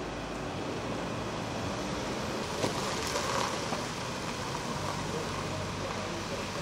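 Steady outdoor background noise, an even hiss, with one short click about two and a half seconds in.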